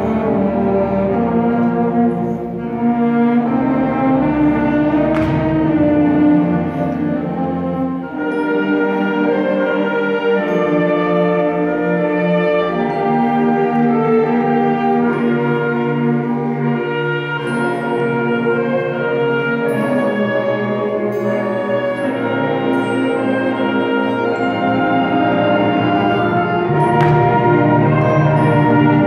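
Middle school symphonic band of woodwinds and brass playing live, a slow passage of long held chords.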